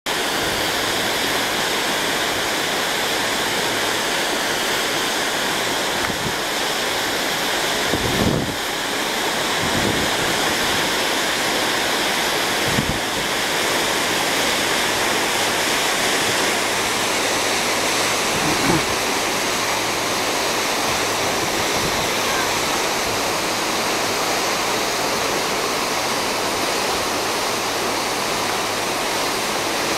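Steady rushing of sea water and wind heard from a ship at sea, with a faint low steady hum underneath. A few brief low thumps stand out, around 8, 13 and 19 seconds in.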